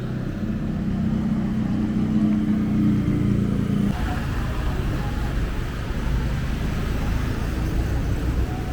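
Street traffic: a motor vehicle's engine hum, which gives way about four seconds in to a lower, steady rumble.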